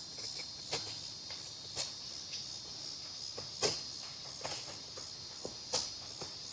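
A fixed-blade knife shaving curls off dry firewood: several short scraping strokes a second or two apart. Insects chirr steadily and high-pitched behind them.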